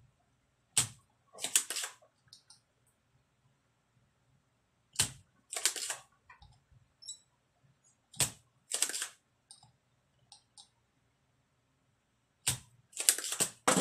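Spring-loaded desoldering pump, fired four times to suck molten solder off the pins of a shorted capacitor on an amplifier circuit board. Each sharp snap is followed about half a second later by a short noisy burst.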